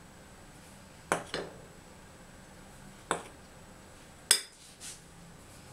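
A metal spoon clinking against a mesh sieve and bowls while flour is scooped into the sieve: five short clinks in two pairs and a single, the sharpest about four seconds in.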